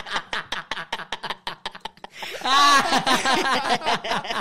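Men laughing hard: a run of quick breathy laughs, with a loud high-pitched laugh about two and a half seconds in.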